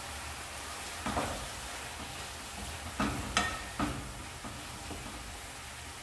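Chicken bones frying in oil with onion, tomato and spices, a steady sizzle while they are stirred. A spoon knocks against the pot several times between about one and four seconds in.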